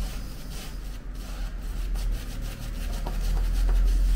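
Shaving brush swishing and rubbing through wet shaving-soap lather on a bearded face, in repeated irregular strokes, over a low rumble.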